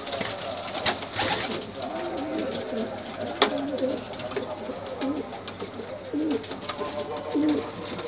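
Domestic pigeons cooing, a string of low, wavering coos repeated every second or so, with a few short sharp clicks among them.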